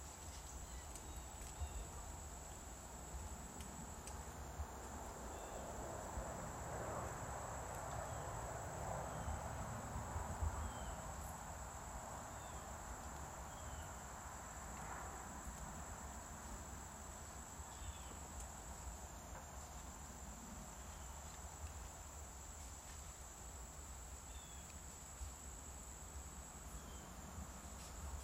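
Insects buzzing in the woods, a steady high-pitched drone, with faint short chirps recurring every couple of seconds. A soft wash of noise swells and fades in the middle.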